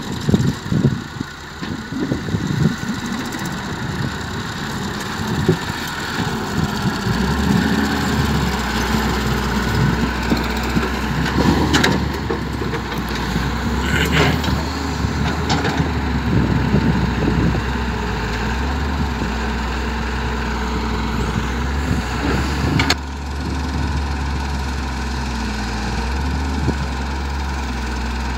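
Diesel engines of a Massey Ferguson tractor and a wheeled excavator running with a steady low hum, with scattered knocks and clatter as the excavator loads soil into the tractor's trolley.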